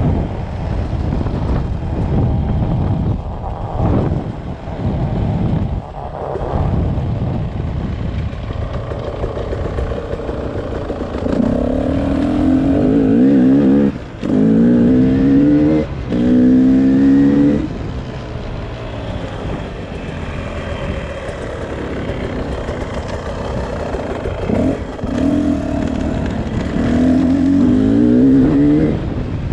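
Beta RR 300 single-cylinder two-stroke engine. It runs unevenly at lower revs, then revs up hard in several climbing pulls about halfway through, with short breaks between pulls as it shifts up. A further pull comes near the end.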